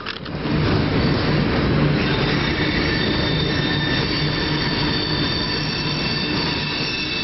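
CN freight train of tank cars rolling over a steel girder bridge: a steady rumble of the cars, with high, thin squealing from the wheels joining in about two seconds in and continuing.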